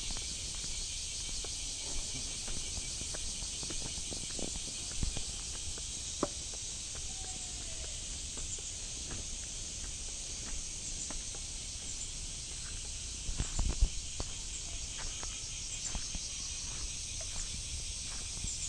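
A steady, high-pitched chorus of insects that never lets up. Light clicks and knocks are scattered through it, with a cluster of louder thumps about 13 seconds in.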